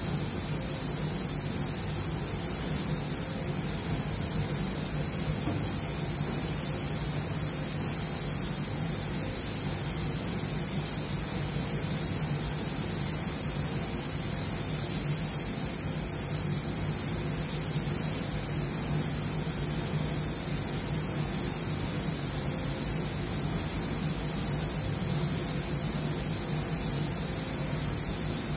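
Steady hiss of a compressed-air paint spray gun spraying panels, over a steady low hum.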